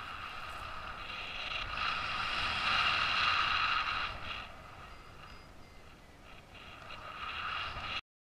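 Airflow rushing over the microphone of a paraglider in flight, swelling to its loudest a couple of seconds in, easing off, then building again before the sound cuts off suddenly just before the end.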